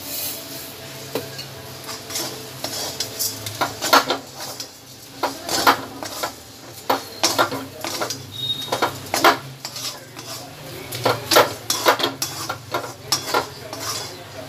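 Metal spatula scraping and clacking against a metal kadai as thick chana dal paste, with sugar just added, is stirred and pressed; the strokes come irregularly, some sharp and loud.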